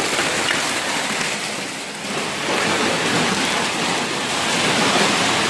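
Large hailstones falling heavily, a dense, continuous clatter of stones striking hard surfaces.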